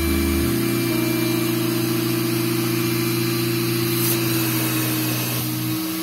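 Extractor vacuum cleaner running with its upholstery hand tool on fabric, a steady motor hum. The pitch shifts a little about half a second in and again near the end.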